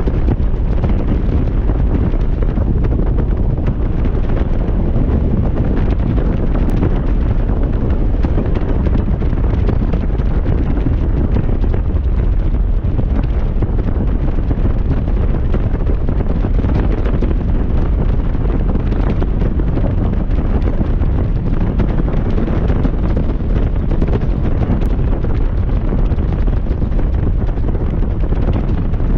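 Loud, steady wind rumble buffeting the microphone of a Honda motorcycle on the move, with the bike's road and engine noise blended underneath.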